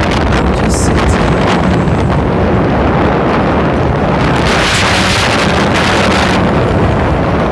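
Wind buffeting the microphone of a phone carried on a moving motorcycle, over engine and road noise. A louder rushing hiss swells for a couple of seconds midway.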